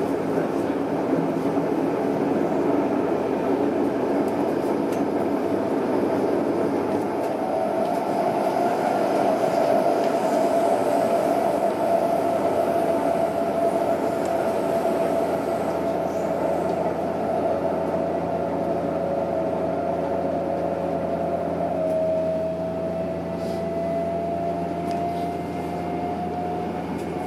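Tokyo Metro 06 series electric train running at speed, heard inside the passenger car: a steady rumble of wheels on rail under a steady motor whine. In the last few seconds the running noise eases and a whine rises gently in pitch as the train begins slowing for the next station.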